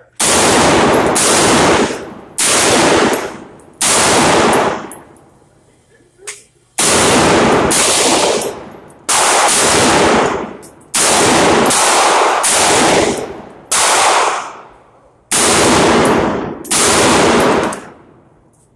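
A Stag Arms Stag-15 AR-15 pistol with a 7.5-inch barrel fires about ten very loud reports in quick groups with short pauses. Each shot rings out for a second or more off the walls of the indoor range before fading.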